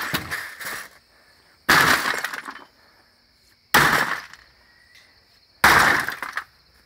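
Three blows smashing an old television set, each a sudden crash of breaking glass and debris that dies away over about a second, about two seconds apart.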